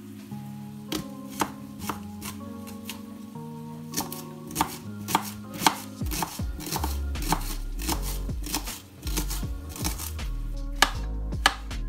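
Kitchen knife chopping an onion on a plastic chopping board: sharp knocks of the blade hitting the board, a few at first, then coming quickly from about six seconds in.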